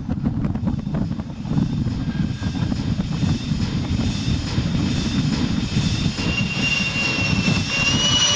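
Radio-controlled YF-23 model jet's engine during its takeoff roll: a steady low roar, joined about six seconds in by a high whine that edges up in pitch.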